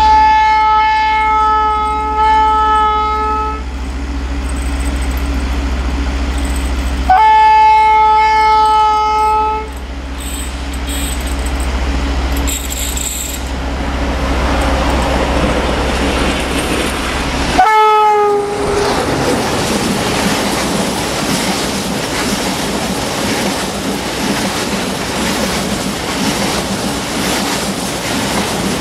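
Horn of a CFR class 60 (060-DA) diesel-electric locomotive sounding three times as it approaches with a freight train: a long blast, a second long one about seven seconds in, and a short one about 18 seconds in whose pitch drops as the locomotive goes by. Then the train's empty flat wagons roll past with a steady rumble and clickety-clack of wheels over rail joints.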